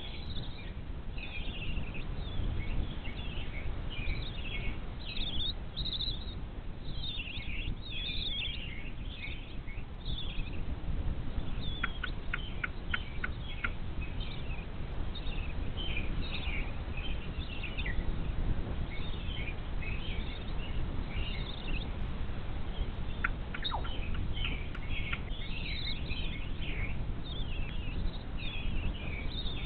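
Birds chirping in many short, quick calls throughout, over a low steady rumble, with two brief runs of rapid ticks about twelve and twenty-three seconds in.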